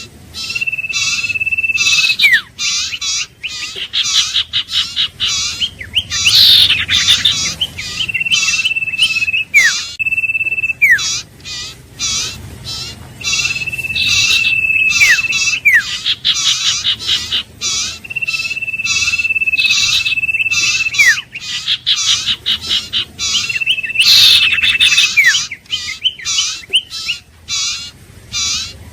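Common iora singing: a long, level whistle held for one to two seconds that drops sharply at the end, repeated about six times, over a fast run of chattering notes.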